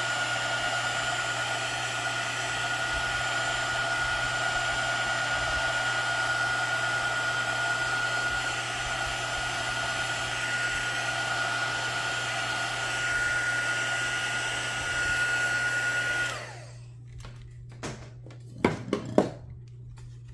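Craft heat tool blowing steadily with a thin steady tone, heat-setting embossing powder on stamped cardstock as the powder melts. It cuts off suddenly about sixteen seconds in, followed by a few light knocks.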